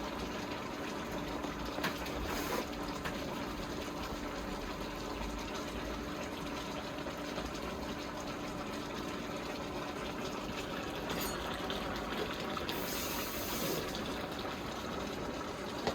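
Steady rush of water running without a break, with a few faint clicks and a short hiss near the end.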